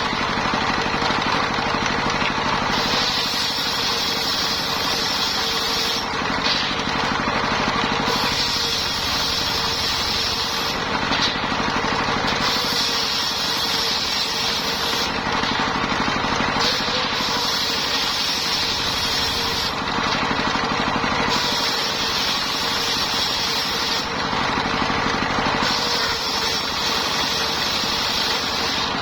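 Engine-driven circular sawmill running steadily while it saws lamtoro (leucaena) wood. A higher whine comes and goes about every four to five seconds, each time for about three seconds, over the constant engine note.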